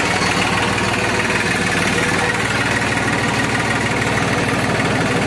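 New Holland 3600-2 tractor's three-cylinder diesel engine running steadily while working a cultivator, heard from the operator's seat. It is fitted with a replacement silencer that makes it louder.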